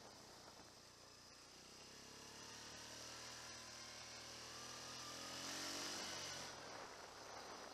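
A faint distant motor humming, growing louder and rising in pitch to a peak about six seconds in, then dropping away, like an engine passing by.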